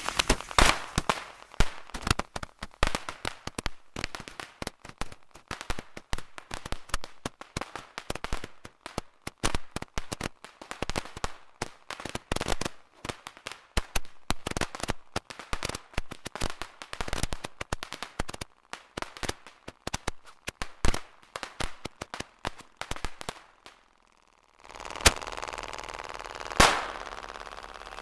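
A bundle of Flashing Thunder Roman candles firing together: a dense, irregular barrage of pops, crackles and bangs lasting over twenty seconds, then stopping. After a short silence, two loud single bangs a second and a half apart over a steady background noise.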